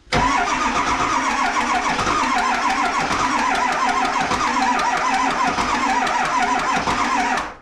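Starter cranking a 7.3 L Powerstroke V8 diesel for about seven and a half seconds, a fast, even pulsing that starts and stops abruptly without the engine catching: a crank-no-start on a long-dormant engine.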